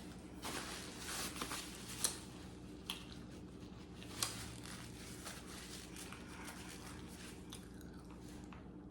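Quiet eating and food-handling sounds from a seafood meal: scattered sharp clicks and crinkling, with a few louder ticks in the first half.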